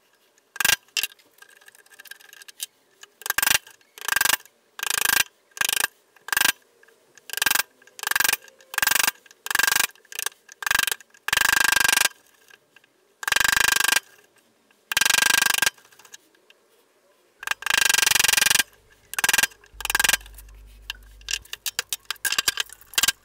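Bench chisel cutting a mortise in oak by hand, paring and levering out chips and squaring the end walls. A string of separate scraping strokes, some short and some about half a second long, with a run of quick short clicks near the end.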